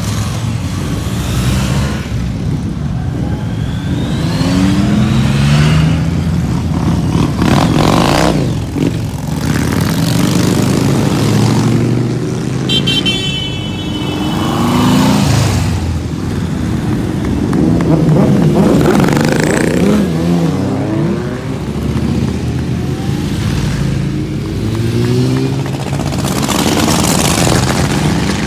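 A stream of motorcycles and a trike riding past one after another, each engine's note rising and falling as it goes by, mixed with other road traffic. A brief high-pitched tone sounds about halfway through.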